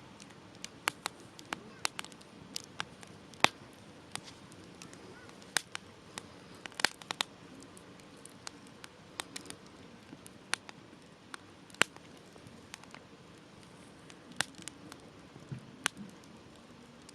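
Campfire crackling and popping: irregular sharp pops, several a second at times, over a faint steady hiss of burning. The loudest pops come about three and a half, seven and twelve seconds in.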